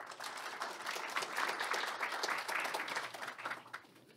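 Audience applauding: the clapping starts suddenly, is strongest in the middle and dies away near the end.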